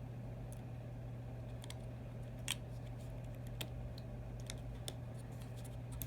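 Scattered small, sharp clicks and taps from a phone's small parts and tools being handled during reassembly, the loudest about two and a half seconds in, over a steady low hum.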